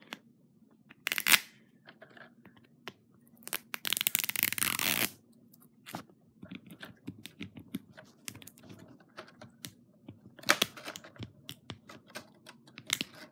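The wrapping layer of an L.O.L. Surprise mystery ball being picked at and torn off by hand. Small crinkles and scratches are scattered through it, with a few sharp rips; the longest, about four seconds in, lasts about a second.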